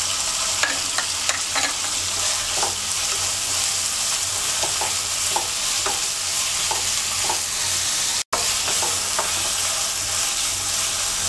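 Chicken and vegetables sizzling in hot oil in a nonstick karai while a wooden spatula stirs them, with frequent light scrapes and taps of the spatula against the pan. The sound breaks off for an instant about eight seconds in.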